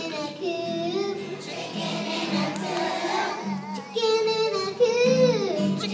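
Young children singing a song together over musical accompaniment, with a louder, longer held note near the end.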